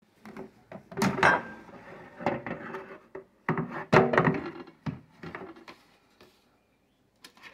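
Instant Vortex air fryer's basket drawer being pulled open and handled: a series of clunks and knocks, loudest about a second in and again around four seconds, then a few faint clicks near the end.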